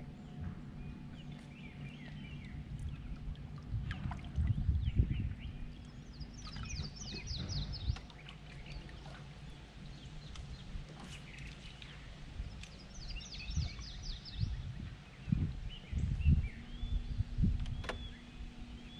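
A bird singing a fast, high trill twice, with other scattered chirps, over the steady low hum of the bass boat's trolling motor. Occasional low thumps come and go.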